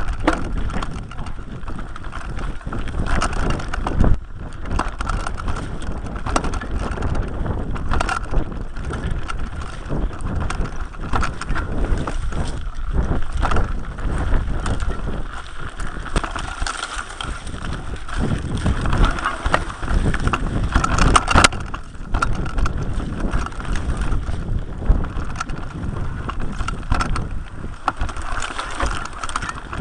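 Mountain bike riding over rough ground: a continuous rattle of the bike with frequent sharp knocks and jolts, tyre noise, and wind on the microphone.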